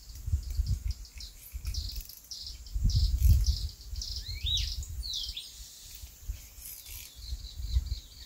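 Birds chirping and calling in quick short notes, with a couple of rising and falling whistled calls near the middle. Under them runs a low, gusty rumble of wind on the microphone, loudest about three seconds in.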